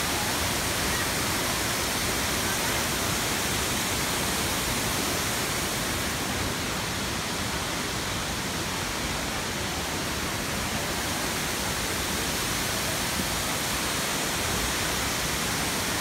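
Tall waterfall pouring down a rock face into a pool: a steady, unbroken rush of falling water.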